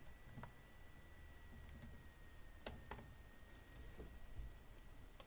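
Faint, scattered clicks of a computer keyboard as a terminal command is typed, over a faint steady high-pitched tone.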